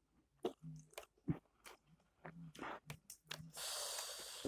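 A person chewing food close to the microphone, with soft mouth clicks and a few short closed-mouth hums. A breathy hiss lasting under a second comes near the end.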